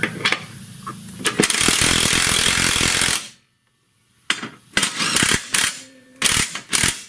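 Cordless impact wrench hammering subframe bolts up to draw the lower frame up into place: a continuous run of about two seconds, then after a short pause several short bursts.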